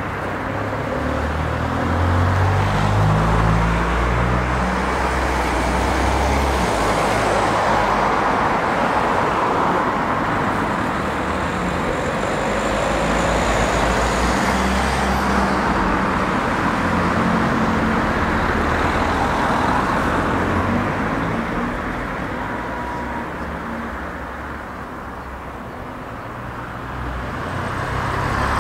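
Road traffic: cars and a van driving past close by, a steady mix of engine and tyre noise that eases off briefly near the end.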